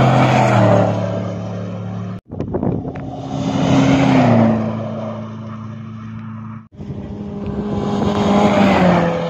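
Three rally vehicles passing at speed on a sand track, one after another with abrupt cuts between: a Ford F-150 Raptor pickup, a Toyota Hilux, then a small jeep. Each engine note grows loud as it nears and drops in pitch as it goes by, with a rush of tyres on sand.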